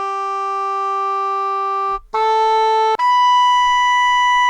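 Sampled English horn from a SoundFont, played one note at a time: a long held note, a short slightly higher note, then a much higher held note from about three seconds in.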